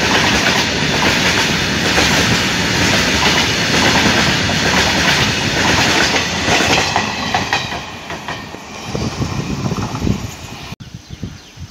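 Freight train of covered wagons rolling past close by, the wheels clattering steadily over the rails. The sound fades over the last few seconds as the brake van at the tail goes by.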